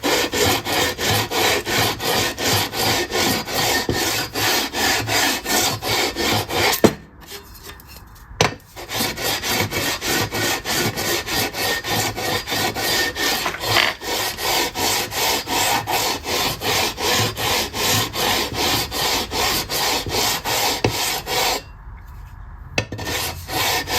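Sandpaper on a leveling beam rubbed back and forth along a bare guitar fretboard, its frets removed, in quick even strokes of about three a second. The board is being sanded level. The strokes stop briefly twice, with a knock at each pause.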